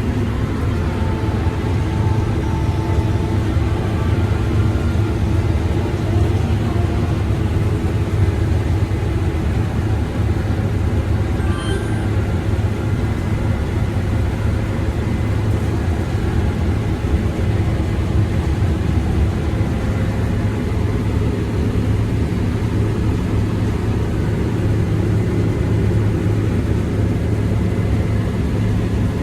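Combine harvester working in corn: a constant low drone from the engine and threshing machinery that holds steady throughout.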